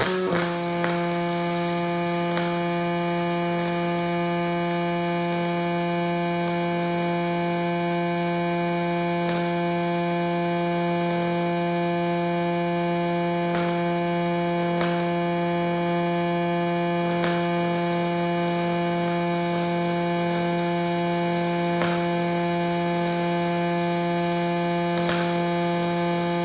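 Welding arc from a cobot-held welding torch: a steady, loud buzz that starts abruptly and holds unchanged, with faint clicks now and then.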